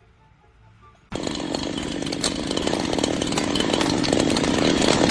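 A loud motorized machine, like a power tool or small engine, starts abruptly about a second in and runs steadily at high speed, building a little.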